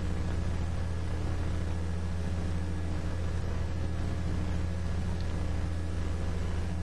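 A steady low hum with even lines of pitch over a faint hiss, unchanging throughout.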